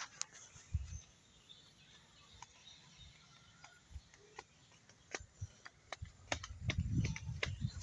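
Quiet outdoor ambience: scattered light footsteps on a dirt path with faint bird chirps in the background. A low rumble builds near the end.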